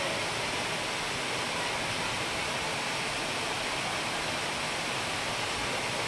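Three-tiered Wei Sawdong waterfall rushing steadily into its pool: a continuous, even hiss of falling water.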